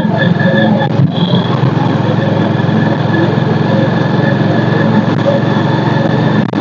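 Motorcycle engine running steadily while riding along a dirt road.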